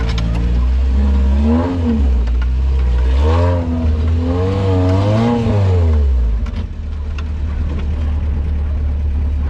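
Suzuki Gypsy off-roader's engine revving up and down several times under load as it drives over a dirt track, then settling into a steadier, lower drone for the last few seconds, with some light clatter.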